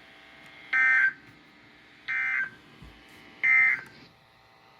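Three short bursts of Emergency Alert System data tones, the buzzy digital squawk of the EAS code, about a second apart: the End of Message (EOM) signal that closes a broadcast warning.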